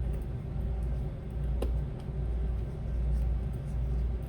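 Steady low hum of background room noise, with one small click about one and a half seconds in.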